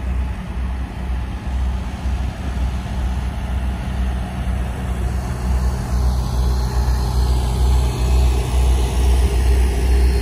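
A stationary BNSF track geometry train idling: a steady, loud low diesel rumble with a constant hum, growing slightly louder in the second half.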